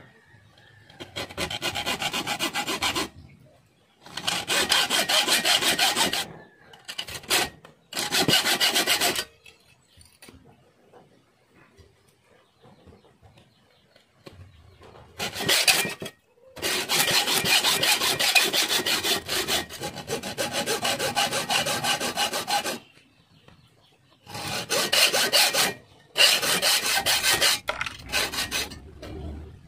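Hacksaw cutting through a metal tube with quick back-and-forth strokes. It goes in several runs of a second to several seconds each, broken by short pauses.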